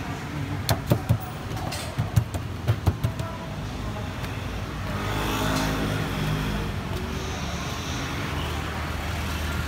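Ball of roti canai dough slapped and pressed onto a stainless-steel counter: about seven sharp slaps in the first three seconds. After that, steady street traffic noise, with a passing motor vehicle humming louder a little past the middle.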